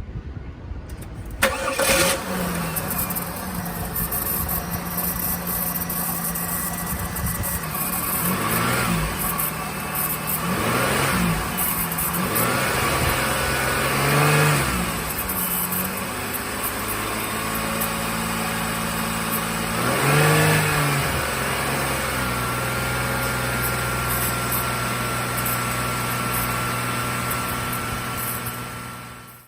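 A car engine starts about a second and a half in, settles into a steady idle and is blipped several times in short revs before idling on; the sound cuts off suddenly at the end.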